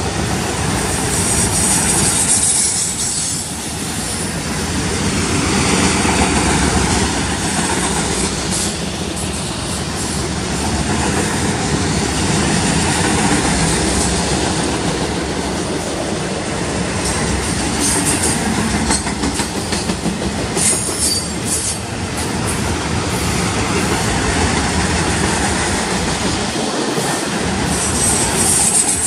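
Freight autorack cars rolling past close by: a loud, steady rumble of steel wheels on rail with clatter over the rail joints. A few times high wheel squeal cuts in briefly.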